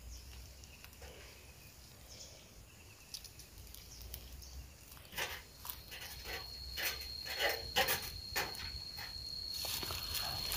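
Quiet outdoor ambience. About halfway through, a run of irregular soft knocks and rustles begins, and a thin, steady, high insect note joins them and holds.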